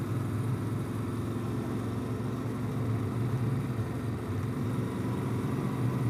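Yamaha Ténéré 700's parallel-twin engine running steadily as the motorcycle rides along, with no revving.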